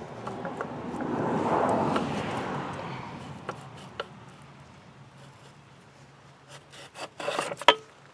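Steel clutch release cross shaft scraping as it is drawn out through its bores in the tractor's cast housing: a rasping rub that swells and fades over about three seconds. A few light clicks follow, then a cluster of metal clanks near the end, the loudest a single sharp clank.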